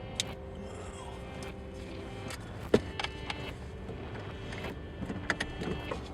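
Steady hum in a vehicle, broken by a few sharp clicks and knocks. The loudest is a single knock a little under three seconds in, with a cluster of smaller knocks near the end, typical of handling noise inside a car.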